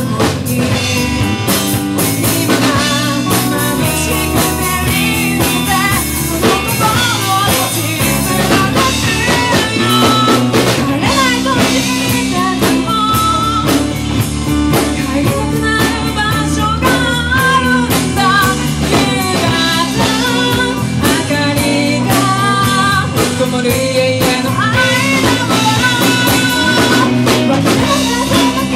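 Live rock band playing: a woman singing a melody over two electric guitars, bass guitar and a drum kit.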